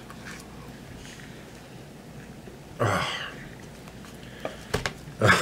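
A man eating makes one short, loud throat noise about three seconds in, with low room hiss around it. A few sharp clicks follow near the end.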